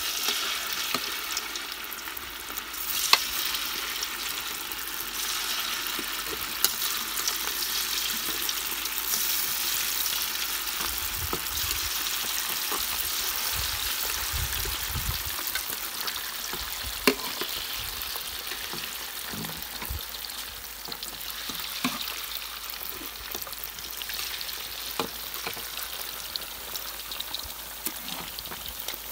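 Chicken wings deep-frying in hot oil in a wok: a steady sizzle, with a few sharp clicks about 3, 7 and 17 seconds in.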